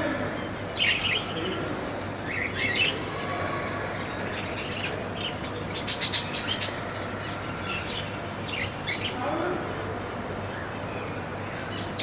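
Caged budgerigars chirping: short scattered chirps, with a quick run of sharp notes around the middle, over a steady low hum.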